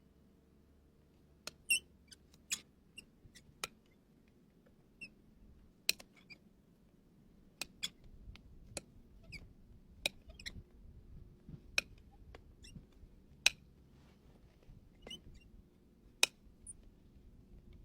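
Farrier's trimming tools cutting into a horse's hoof horn: sharp clicks and snaps at irregular intervals, about one a second.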